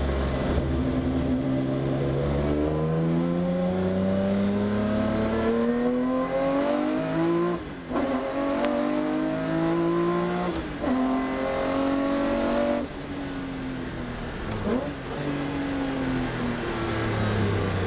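BMW 320 Group 5 race car's engine heard from inside the cockpit, accelerating hard with the revs rising steadily and dropping sharply at two upshifts. Past the midpoint it lifts off, the revs falling as the car brakes, with a short rise in revs partway through.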